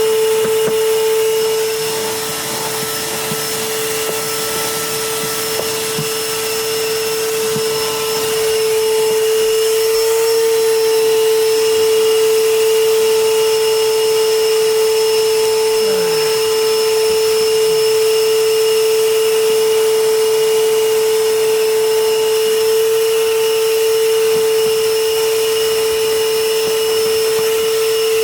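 Vacuum cleaner running steadily with a high motor whine while vacuuming a car's interior floor, with scattered small ticks of debris being sucked up. The sound dips for several seconds near the start, then comes back up.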